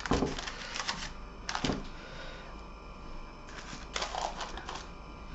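Hands shifting a parchment-lined metal baking tray on a wooden worktop: short knocks and paper rustles in a few clusters, near the start, about a second and a half in, and again around four seconds in.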